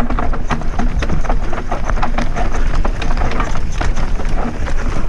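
Mountain bike rattling and clattering at speed down a rocky dirt trail: a dense run of quick knocks from the tyres, chain and frame over rocks and roots, over a heavy low rumble of wind and ground on the helmet camera.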